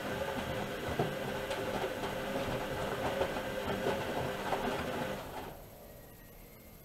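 Bauknecht Dynamic-Sense WAE8575 front-loading washing machine running, its drum turning with a steady motor hum and small knocks, then slowing and stopping about five seconds in.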